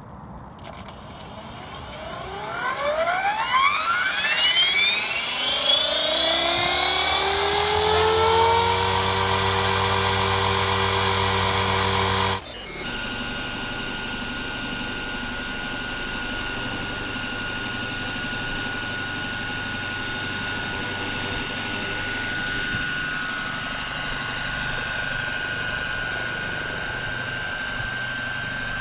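Align T-Rex 450 Pro electric RC helicopter spooling up: the brushless motor and rotor whine rises steadily in pitch over several seconds, then holds at a steady high whine. About halfway through the sound cuts abruptly to a quieter, duller steady hum with a thin high tone as the footage switches to slow motion.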